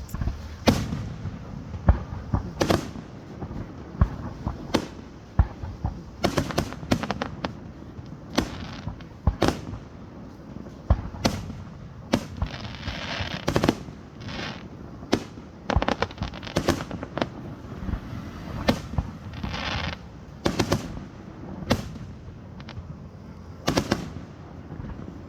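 Fireworks display: aerial shells bursting one after another in an irregular string of sharp bangs, with a couple of short stretches of crackling.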